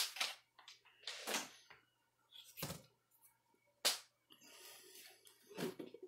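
Quiet handling noise of MRE ration packets: several light taps and short rustles spread out, with no steady sound between them.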